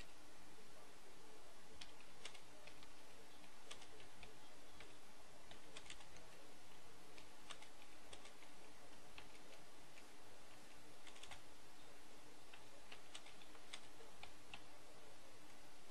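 Typing on a computer keyboard: faint, irregular keystroke clicks coming in small clusters, over a steady low hum.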